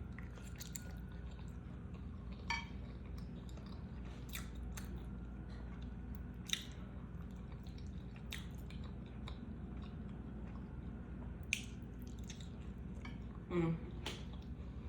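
Close-miked chewing of food, with soft wet mouth clicks and smacks scattered throughout. One short, low voiced sound comes near the end.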